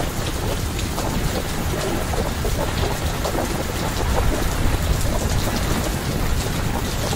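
Rain falling steadily onto a paved rooftop terrace: an even hiss with a low rumble underneath.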